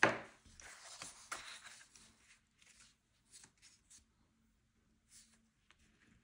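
A knock right at the start, then scratchy strokes of a drawing or painting tool on paper: a continuous scrubbing stretch of about two seconds followed by several short separate strokes.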